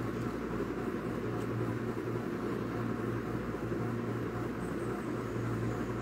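Steady low hum with a faint hiss underneath: constant room background noise.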